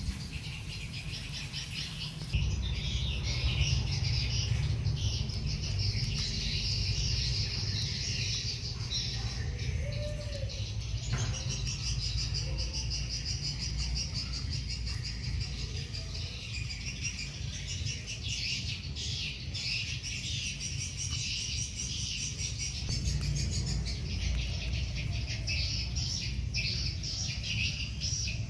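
Steady high-pitched chirping of insects, with a low steady rumble underneath; both get a little louder about two seconds in.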